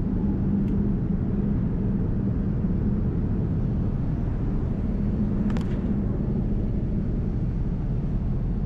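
Steady cabin noise of a jet airliner in flight: the engines and rushing air make an even, low drone with no change in pitch or level.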